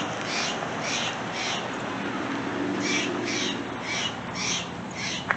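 Steller's jay giving loud, harsh 'yeek' calls: two runs of about two calls a second, with a pause of about a second between them.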